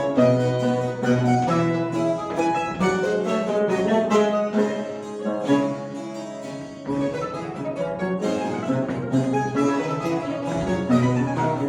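Mandolin ensemble playing a classical-style piece: quick plucked and tremolo notes over a held bass line.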